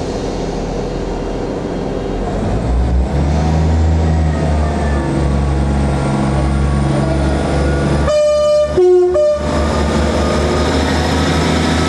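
An approaching train with its engine rumble building, which sounds a two-tone horn about eight seconds in: a high note, a lower note, then the high note again, each brief.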